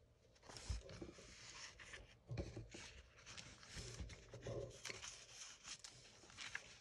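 Faint rustling and handling of paper and card in a handmade journal, with a few soft low knocks.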